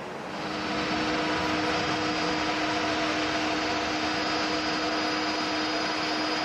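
Jet airliner engines at takeoff thrust during the takeoff roll: a steady, loud rushing noise with several steady whining tones, swelling about half a second in and then holding level.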